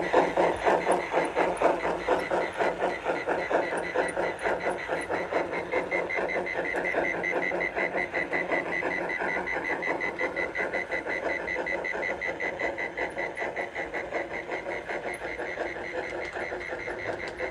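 Model steam locomotive running with a quick, even chuffing rhythm that slowly fades as the train draws away. A thin, high pulsing tone joins about six seconds in.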